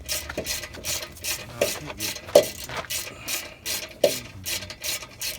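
Hand ratchet wrench working under the truck: a steady run of rasping clicks, about four a second, with a few louder metal knocks in between.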